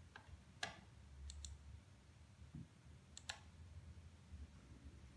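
Faint, sharp clicks over a low hum: a single click, then two quick pairs of clicks.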